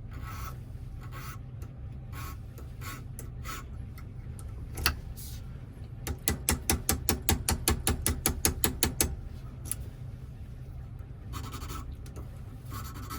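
A single sharp click, then a fast even run of small clicks, about six a second for some three seconds, amid lighter scattered clicks and rubbing from hands handling small equipment.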